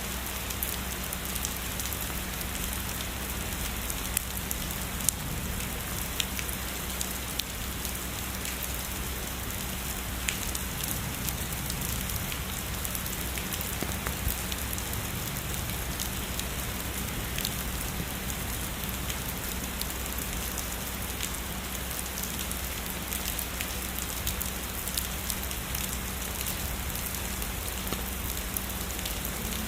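Steady heavy rain falling on a surface, with scattered louder drops hitting close by.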